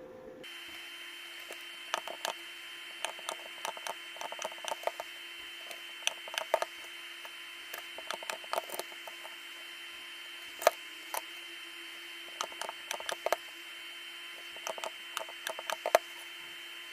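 Irregular light clicks and taps of hand work on a lithium-ion battery pack as its cells are soldered together with nickel strips, over a steady low hum.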